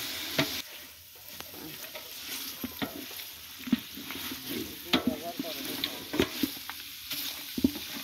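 Wooden spatula stirring chicken curry in a large aluminium pot, knocking and scraping against the metal sides at irregular intervals over the sizzle of the frying meat and masala.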